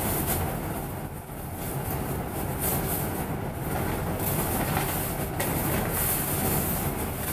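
Steady low rumble of a double-decker bus's engine and cabin, heard from the upper deck while it runs in slow traffic, with a hiss above it that swells and fades.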